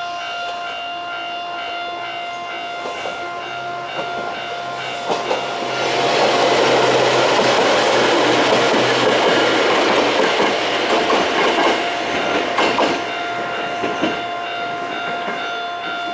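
A Choshi Electric Railway level crossing's old-style warning bell ringing in a steady repeating pattern. A small electric train passes over it: its running noise builds about five seconds in, stays loud for several seconds with sharp wheel clicks over the rail joints, then fades while the bell keeps ringing.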